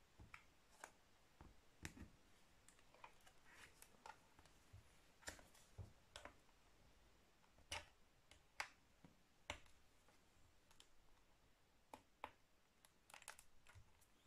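Faint, irregular clicks and ticks of a plastic pry tool working under a laptop's cover to release it, scattered unevenly through the stretch.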